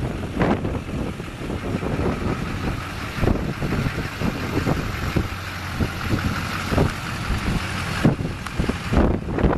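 Duramax 6.6L V8 diesel engine of a pickup truck idling, with wind buffeting the microphone.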